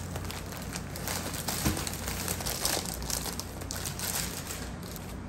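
Thin plastic bag crinkling and crackling in irregular bursts as hands handle and unwrap a parcel, with the clear plastic sleeve of the package rustling.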